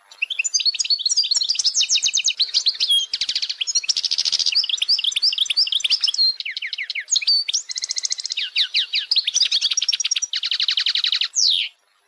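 European goldfinch singing: a fast, unbroken run of varied twittering notes mixed with rapid trills, cutting off suddenly near the end.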